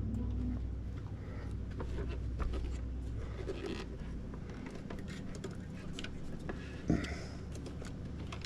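Scattered light clicks and taps of plastic dashboard console trim and small parts being handled during disassembly, over a low steady hum that fades about halfway through. A sharper knock comes about seven seconds in.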